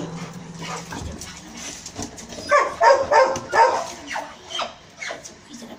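Young Doberman giving a quick run of four or five short, excited vocal sounds about two and a half seconds in, during play with a toy in its mouth.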